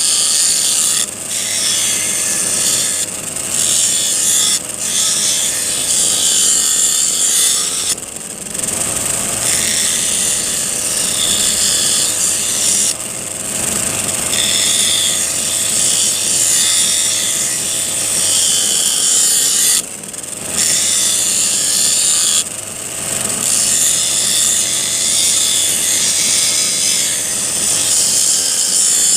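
Steel file being ground on an abrasive wheel driven by a brush-cutter (grass-cutter) machine: a continuous harsh grinding hiss, broken by short gaps several times as the work comes off the wheel.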